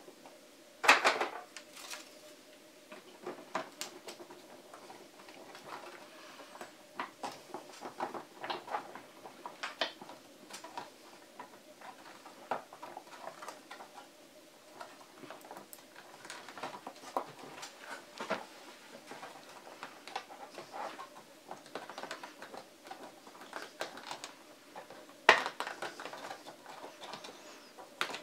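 Plastic cell holders being pressed by hand onto rows of 18650 lithium-ion cells: scattered small clicks, taps and rattles of plastic against the cells, with a louder clack about a second in and another a few seconds before the end.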